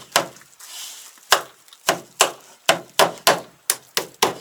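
About ten sharp blows on wood: one, a pause of about a second, then roughly three a second.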